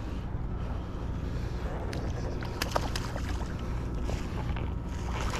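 Steady low rumble of wind buffeting the microphone outdoors, with a few light clicks and taps of handling about two to three seconds in and again near the end.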